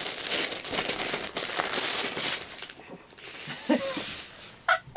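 Gift wrapping paper being torn and crumpled as a present is unwrapped, dense rustling for about two and a half seconds, then quieter with a few short vocal sounds near the end.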